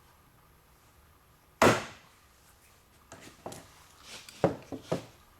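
One sharp knock about one and a half seconds in, then a quick run of lighter knocks and clicks near the end, from hand tools and metal parts of a steering-column ignition lock being tapped and handled.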